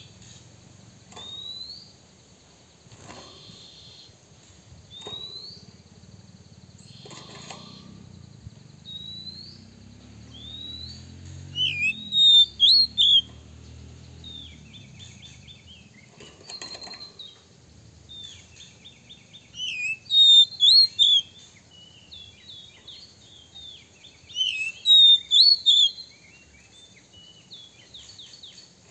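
Oriental magpie-robin singing in bursts. It opens with single rising whistles, then gives loud runs of varied whistled, chattering and rapid clicking notes around the middle and near the end. Several short rustling knocks come in the first half and again around the middle.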